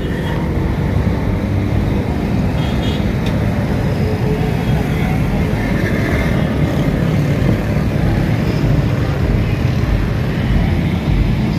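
Steady rumble of road traffic on a busy street.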